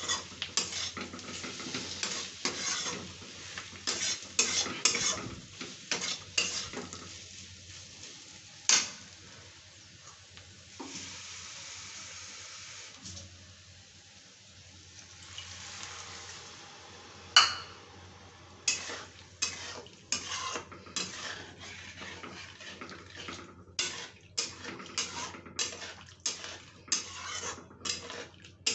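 Flat metal spatula scraping and clacking against a kadhai as potato and pointed gourd (parwal) sabzi is stirred, with two louder knocks on the pan. In the middle the clacking gives way to a few seconds of steady hiss, then the scraping starts again.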